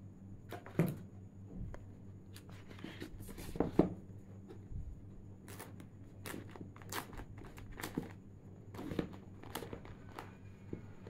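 Rustling and handling of a tablet's packaging: a paper-wrapped sleeve and the cardboard box being lifted and shifted, with irregular scrapes and taps, the loudest about a second in and again near four seconds. A faint steady low hum underneath.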